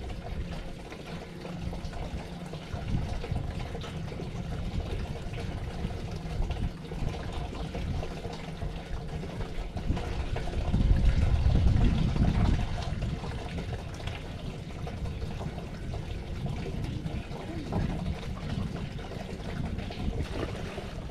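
Water lapping and trickling against a small boat's hull, with wind buffeting the microphone and a gust swelling about halfway through.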